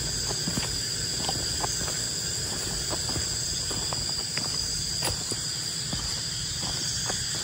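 Night-time forest insect chorus: crickets giving a steady high-pitched trill, with scattered faint clicks and ticks.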